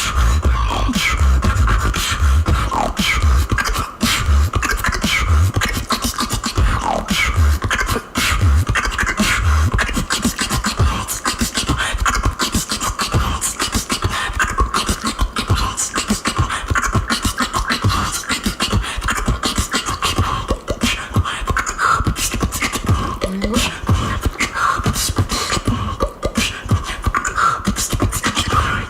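Female beatboxer performing solo: a fast, dense run of vocal kick drums, snares and clicks, with a held high sound running over much of it.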